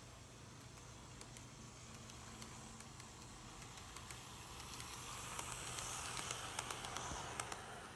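N gauge model train running along the track, a soft whirr of wheels and motor that grows louder as it approaches. It is loudest as it passes close, with quick clicks over the rail joints, then drops off sharply near the end.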